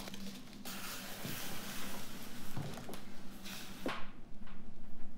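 An envelope or cardboard box slides across a wooden tabletop, a steady scraping that lasts about three seconds, followed by a couple of light knocks near the end.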